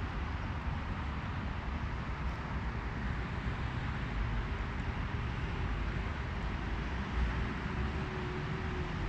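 Steady outdoor background rumble, heaviest in the low end, with no distinct crow calls standing out.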